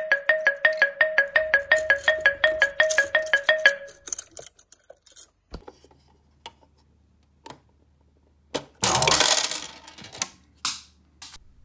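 A clock-ticking sound effect made of quick mallet-like ticks, about six a second in two notes, stops about four seconds in. After a few light clicks, small plastic miniature kitchen pieces clatter loudly for about a second near the end as a toy dish rack tips over into a pan.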